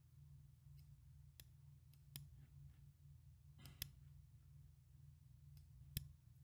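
Near silence over a steady low hum, with about seven scattered faint computer mouse clicks.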